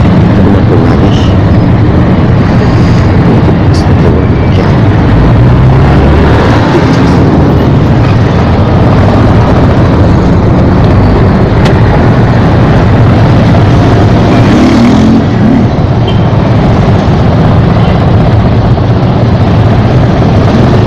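Motorcycle and scooter engines running in dense, slow traffic, recorded from a motorcycle in the middle of it. The sound is loud and steady throughout.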